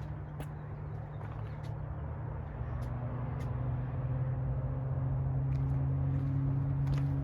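A motor vehicle's engine hum, steady and low, rising in pitch and growing louder about three seconds in, as of a car moving nearby; over it, scattered footsteps on stairs.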